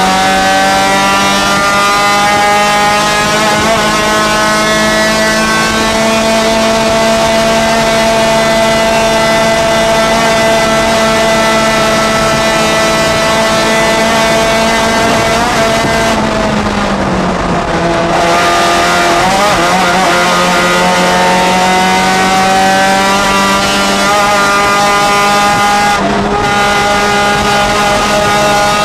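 Race-prepared Honda four-cylinder engine of a Honda Challenge H4 race car, heard from inside the cabin, running hard at high revs. The revs hold nearly steady, fall off about 16 seconds in, climb again, and break briefly about 26 seconds in before picking up.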